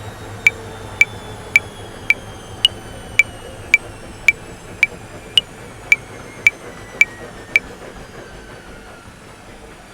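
Metronome clicking at 110 bpm in 5/4, with every fifth click accented higher, stopping about three-quarters of the way through. Underneath, a washing machine runs steadily with a thin whine that slowly falls in pitch and fades near the end.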